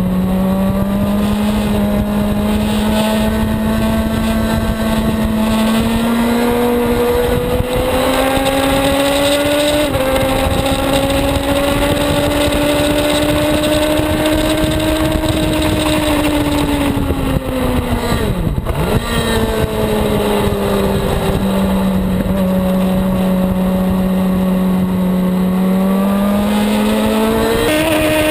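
Suzuki GSX-R750 sportbike's inline-four engine running hard at speed, with wind rush. The engine note climbs in small steps over the first ten seconds and holds high. About two-thirds through, the pitch drops sharply as the throttle closes, then it runs lower before rising again near the end.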